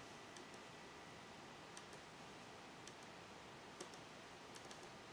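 Near silence with a handful of faint computer mouse clicks, several in quick pairs, over low room hiss.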